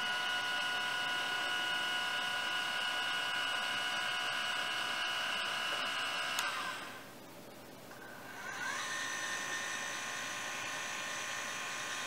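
Celestron NexStar 8SE mount's motor slewing at its top speed (rate 9), a steady high whine of several tones. About six and a half seconds in it stops with a click, and some two seconds later it starts again, the pitch rising as it speeds up, then runs steadily.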